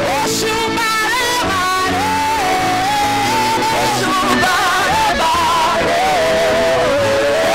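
A church praise team singing a gospel song into microphones over instrumental backing, the lead voice holding long wavering notes.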